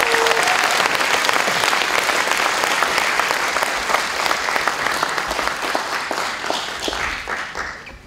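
Audience applauding, a dense patter of many hands clapping, which thins out and dies away over the last couple of seconds.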